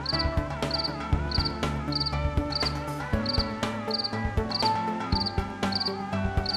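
Cricket chirping evenly, about one and a half to two chirps a second, each chirp a quick trill of a few pulses. It sits over background music with held, changing notes and light percussion.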